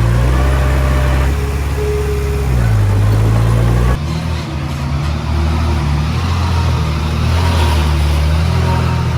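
Heavy diesel engine running under load, its pitch dipping and recovering about three seconds in; about four seconds in the sound changes abruptly to a slightly different engine note.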